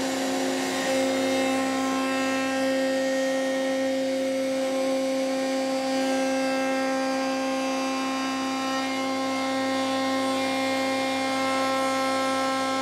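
Table-mounted router running at speed with a guided round bit cutting a hand-hold recess into the end grain of a maple and walnut board, a steady high whine, with the dust extractor running.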